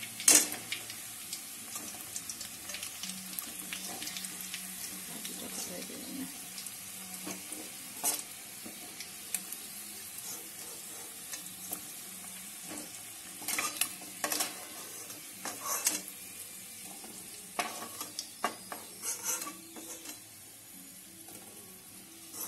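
Masala-coated chicken pieces deep-frying in oil in a metal wok: a steady sizzle, with a spatula scraping and knocking against the wok as the pieces are turned and lifted out. The sharpest knock comes just after the start, with more scrapes and clinks scattered through the rest.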